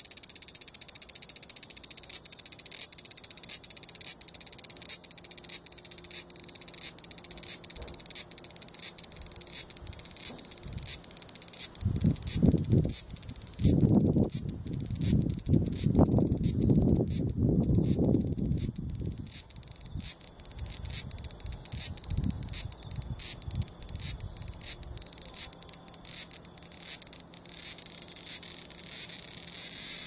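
Large brown cicada (abura-zemi, Graptopsaltria nigrofuscata) calling in its broken 'gii-gii-gii' form: a steady high buzz that breaks into a run of short, evenly spaced pulses, just under two a second. This pulsed call is the one the cicada gives while it moves about on the trunk, rather than the long continuous 'giiii' it gives sitting still. Partway through, a low rumbling noise sounds under the calls for several seconds.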